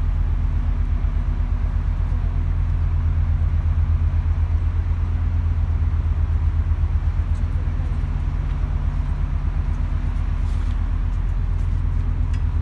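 Steady low drone of a car ferry's engines, with a fast, even throb.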